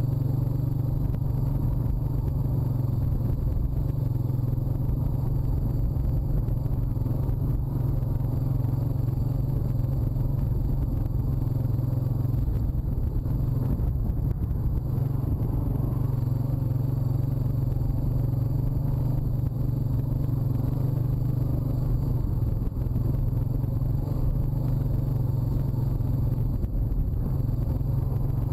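Honda ATV's single-cylinder four-stroke engine running at a steady pace while riding across rough grassland.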